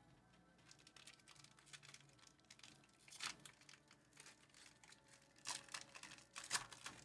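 Foil trading-card pack being torn open, its wrapper crinkling in faint, short crackling bursts, loudest about three seconds in and again twice near the end.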